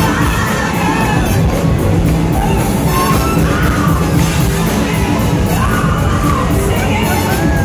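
A live rock band playing loudly: a woman sings lead over electric guitars and a drum kit.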